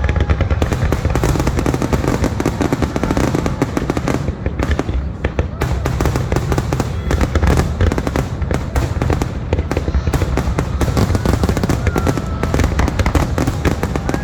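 Fireworks going off without let-up: a dense, rapid string of crackling pops and bangs over a heavy low rumble.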